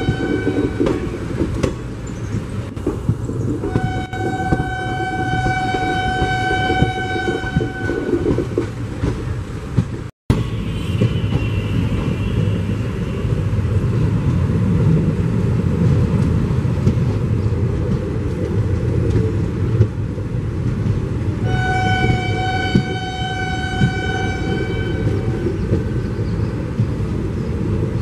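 Passenger train running at speed, heard from an open coach door: a steady rumble of wheels on rail, with long blasts of a locomotive horn, one ending about a second in, one from about four to eight seconds, and one around twenty-two to twenty-five seconds. The sound cuts out for a moment about ten seconds in.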